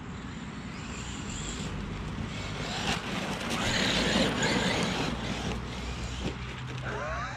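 Traxxas Maxx 4S RC monster truck with a brushless Surpass 4076 2200kv motor driving across gravelly dirt: tyres scrubbing on the ground and the electric drive running, loudest as the truck passes close about four seconds in.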